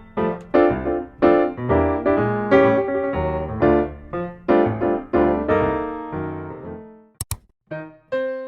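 Background piano music playing a series of ringing notes. It fades out about seven seconds in, two sharp clicks follow, and the piano starts again near the end.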